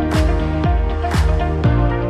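Electronic background music with a steady beat, about two kicks a second under sustained synth tones.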